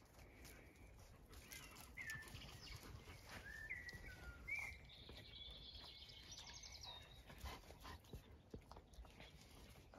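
Faint high squeaks from puppies at play, a few short ones in the first half. A bird trills in the background a little past the middle.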